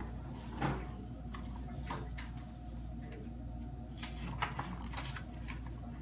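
Pages of a picture book being handled and turned: a few soft rustles and taps over a low steady hum.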